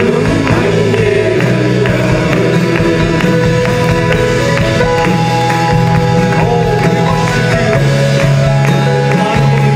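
Live Malayalam worship song: a group of singers with keyboard accompaniment over a steady beat.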